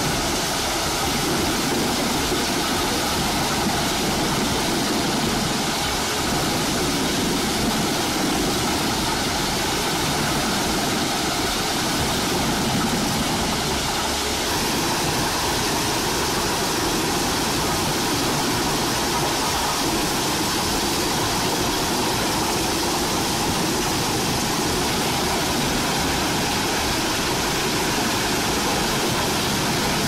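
Truck-mounted drum wood chipper running under load as its crane grapple feeds it logs: a steady, dense mix of engine and chipping noise.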